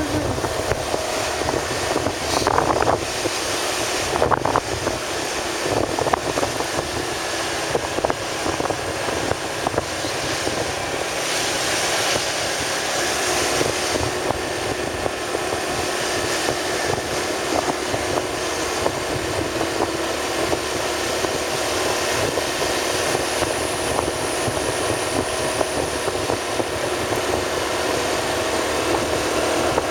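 Steady vehicle engine and road noise of a moving ride, continuous throughout, with a few short faint knocks in the first seconds.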